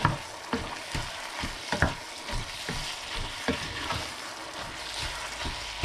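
Ground beef with onions and garlic sizzling as it browns in a frying pan, stirred with a wooden spatula that scrapes and knocks against the pan in irregular short strokes.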